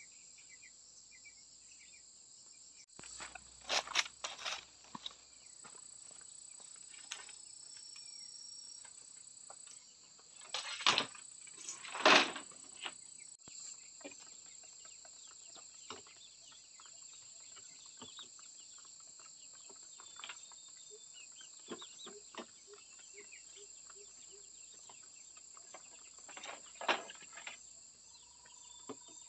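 Steady high buzzing of insects, broken by a few clusters of sharp wooden knocks and clatters from boards and poles being handled. The loudest two knocks come near the middle.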